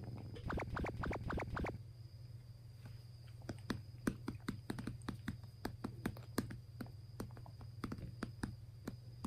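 A hand patting a belly through a sweatshirt like a drum ('belly drum'): a quick run of soft taps in the first two seconds, then irregular single taps, over a steady low rumble.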